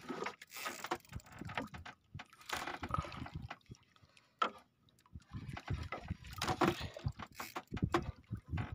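Spinning fishing reel being cranked as line is wound in against a hooked fish, heard as irregular mechanical whirring and knocks.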